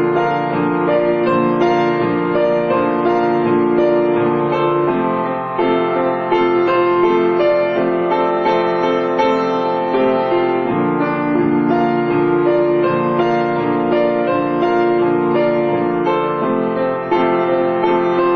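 Background piano music, a continuous melody of held notes at a steady level.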